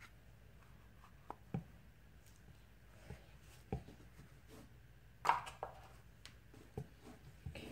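Scattered light knocks and clicks of a spatula and plastic soap-making containers handled on a tabletop, with quiet room tone between; the loudest knock comes a little past five seconds in.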